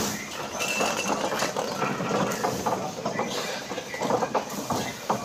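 Cardboard cartons being handled and set down during container unloading, with irregular knocks and thuds over a busy, echoing background.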